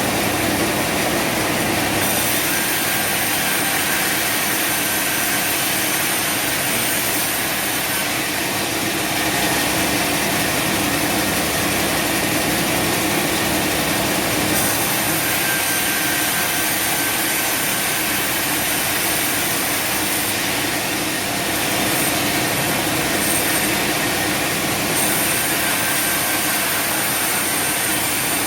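Sawmill machinery running steadily, a continuous loud mechanical noise with a high hiss that comes and goes every few seconds.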